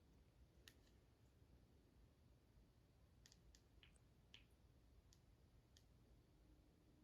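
Near silence: quiet room tone with a low hum and about eight faint, scattered clicks.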